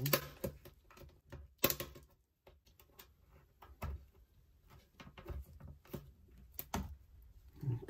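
Plastic clips of a laptop screen bezel snapping loose as the bezel is prised off the lid by hand: irregular clicks and small cracks, the loudest a little under two seconds in.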